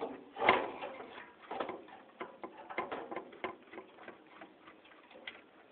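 Hand screwdriver backing screws out of a ceiling fan's metal blade bracket: irregular small clicks and ticks of the tool and screw, with one louder clack about half a second in.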